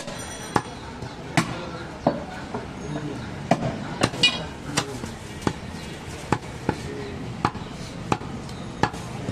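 Heavy butcher's cleaver chopping goat meat on a round wooden chopping block: a steady run of sharp chops, roughly three every two seconds.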